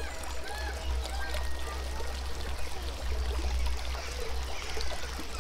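Water running or pouring steadily, with a low rumble underneath.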